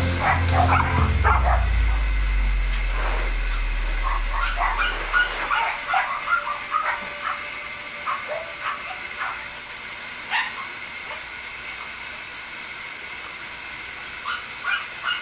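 Small dogs yipping and whining in a quick series of short, high yelps that thin out over the second half.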